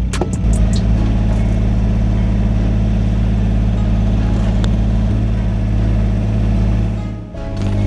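Yanmar VIO17 mini excavator's diesel engine running steadily under working load, dipping briefly near the end and then picking back up.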